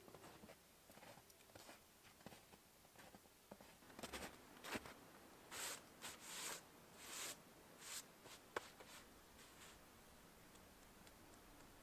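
Faint footsteps in snow, then about five brushing swishes as gloved hands sweep across a snow-covered log on a sawbuck, with one sharp tap near the end.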